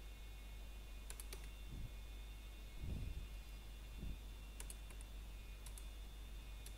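Computer keyboard and mouse clicks: a few quick keystrokes in small clusters, about a second in and again later, as a value is typed in. Under them runs a steady electrical hum with a faint high whine, and there are three soft low thumps near the middle.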